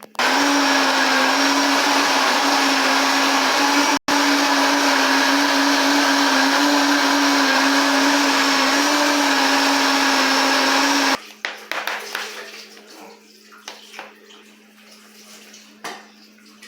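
Countertop blender running at one steady speed, mixing a thick pie batter of milk, broth, eggs and flour. It starts at once, has a split-second break about four seconds in, and stops after about eleven seconds, followed by faint clicks and knocks.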